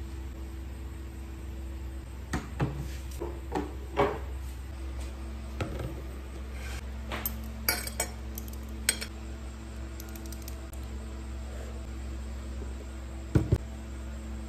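Tableware clinking: a rice paddle and spoon tapping against a ceramic plate and the rice cooker pot in a string of sharp clinks, then two louder knocks near the end, over a steady low hum.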